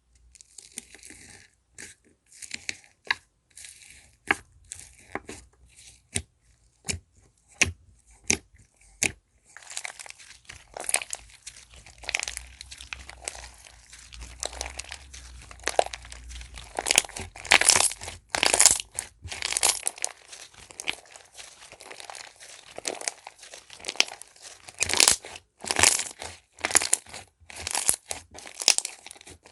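Slime being handled, giving sharp sticky pops and crackles. It starts as separate clicks about once or twice a second, then from about nine seconds in becomes denser crackling with louder pops.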